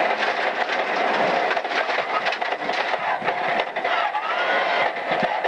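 BMW M3 E36's straight-six rally engine running hard, heard from inside the cabin, then downshifting with rev blips about four seconds in as the car slows for a right-hand corner. Stones and gravel click against the underbody throughout.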